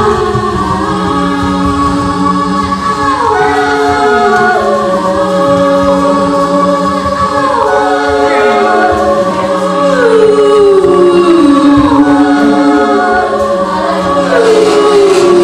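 Several voices singing long held notes in harmony without instruments, with notes sliding down in pitch every couple of seconds.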